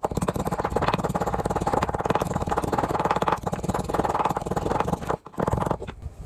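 Wooden pestle crushing garlic cloves in a bamboo mortar: a fast, dense rattle of short strokes that breaks off briefly about five seconds in, then resumes for a moment.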